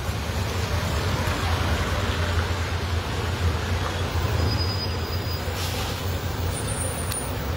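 Steady low rumble under an even wash of outdoor noise, with no clear events.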